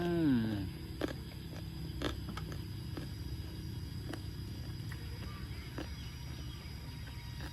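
A short rising-and-falling 'mmm' hum at the start, then steady close-up chewing of spicy squid salad, a low rumble with a few soft clicks and smacks.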